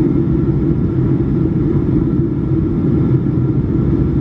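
Steady low drone of a Boeing 757-300 heard from inside the passenger cabin in flight: the engines and the airflow over the fuselage.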